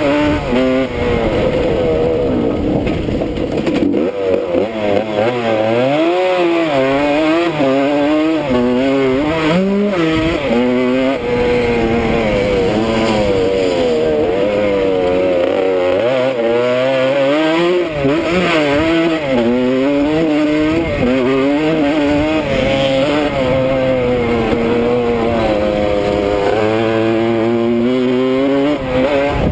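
1979 Suzuki RM125's two-stroke single-cylinder engine, heard from the rider's helmet, revving up and down constantly as the throttle opens and closes through the turns and straights, with wind rushing over the microphone.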